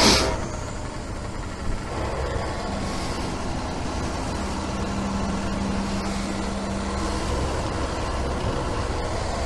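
Petrol pump filling a motorcycle's fuel tank through the hand nozzle: a steady hiss of flowing fuel, with a low hum from the dispenser that comes and goes, after a brief louder rush at the start.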